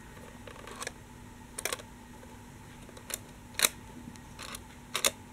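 Scattered light clicks and taps of a plastic toy tram being handled, about six in all, spread across a few seconds.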